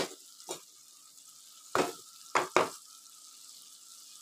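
Chicken and tomatoes sizzling gently in a karahi, a steady quiet hiss, with a wooden spatula knocking and scraping against the pan several times as the food is stirred.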